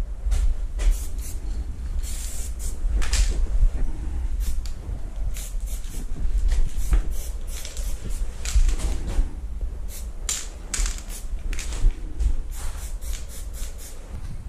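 Aerosol spray-paint can hissing in many short bursts, quick taps of the nozzle with a few longer sprays, over a steady low rumble.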